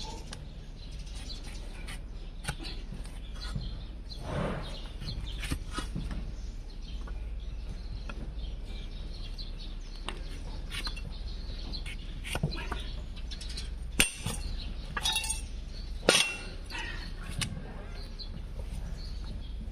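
A hand-held hoof knife paring and scraping a donkey's hoof, a steady run of short cutting strokes and scrapes with a couple of sharper cracks in the last third.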